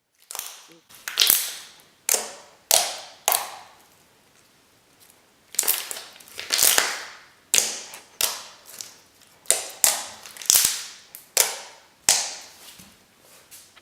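Slime being handled with the hands, making a string of loud, sharp popping and squelching crackles, each dying away quickly. There is a short lull a few seconds in.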